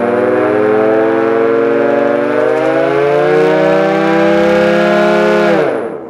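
Dual-tone electric air raid siren, its three-phase motor fed from a single-phase-to-three-phase inverter, winding up: a loud two-note wail rising slowly in pitch, then falling quickly near the end.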